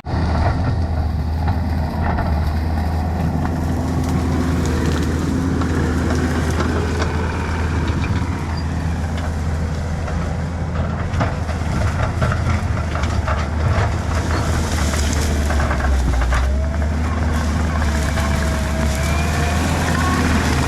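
Kubota SVL75 skid steer's diesel engine running steadily under load, with repeated cracking and snapping of brush and branches as the machine pushes through the woods.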